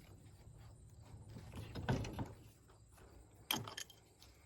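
Metal clinks, scrapes and knocks from a battery cable clamp being handled and fitted back onto a freshly cleaned battery post. The sharpest knocks come about two seconds in and again about three and a half seconds in.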